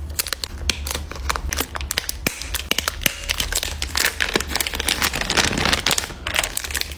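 A clear plastic bag of miniature bottle charms crinkling while the charms inside click and rattle against each other, a dense run of sharp crackles. In the second half a paper bag rustles as the bag is packed into it.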